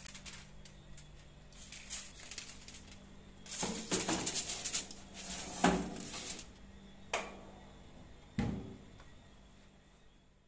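Aluminium foil crinkling as it is pressed down over a metal baking tray, then a few sharp metal knocks as the tray goes onto the oven rack and the countertop oven's door is shut.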